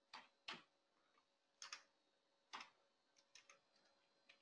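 Faint keystrokes on a computer keyboard: a handful of slow, irregular key clicks as a command is typed.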